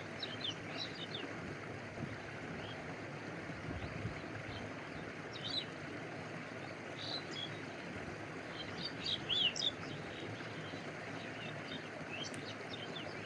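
Stream water flowing and lapping, a steady rushing wash, with small birds chirping in short scattered bursts over it, busiest about nine seconds in.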